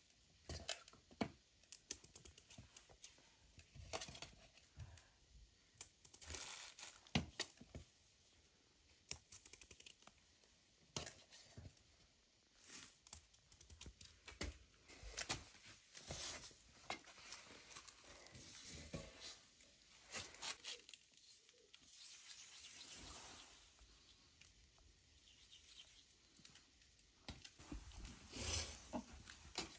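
Faint, irregular crisp clicks and scrapes of a small knife cutting raw potatoes in half over a metal bowl.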